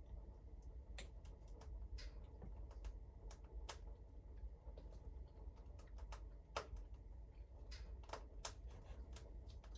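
Faint, irregular clicks and taps of a utensil against a mug or dish during a meal, over a low steady rumble.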